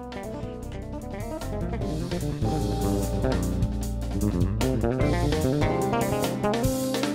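Background music with electric guitar, bass guitar and drums, growing louder about two and a half seconds in.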